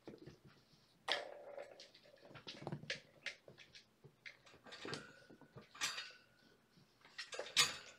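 Scattered soft clicks, taps and rustles of a kitten being handled and syringe-fed on a towel, with small kittens moving about.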